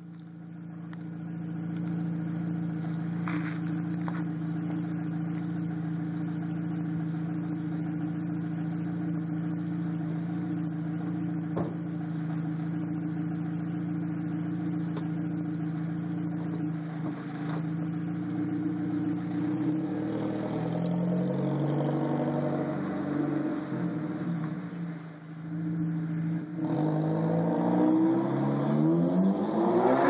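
Exhaust of a 2006 Audi A3 2.0T, a turbocharged four-cylinder with a catless 3-inch downpipe and the muffler deleted, holding a steady drone. From about twenty seconds in its pitch starts to shift, and near the end it rises and grows louder as the engine revs up.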